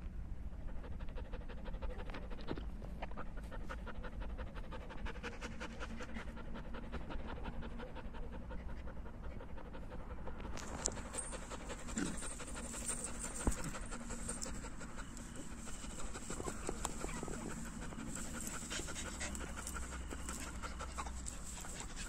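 German Shepherd panting hard and fast, close up, in an even rapid rhythm. A steady high-pitched hiss joins in about halfway through.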